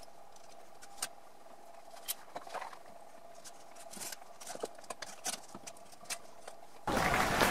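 Steel mixing bowl handled with silicone oven gloves and lifted out of a pot of hot water: scattered light clinks and knocks of metal on metal over a faint steady hum. Near the end comes a sudden loud rushing noise that lasts about two seconds.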